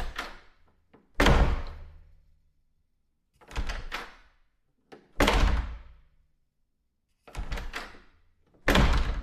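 A door worked open and shut three times in a row. Each time there is a quieter rattle of the latch and handle, then about a second later a louder slam with a low thud.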